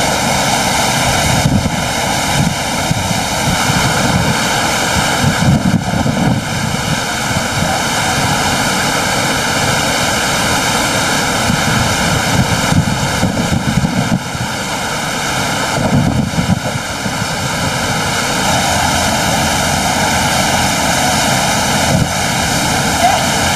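Loud, steady rush of wind and wake noise on the deck of a cruise ship running near its top speed, with irregular low buffeting of the wind on the microphone.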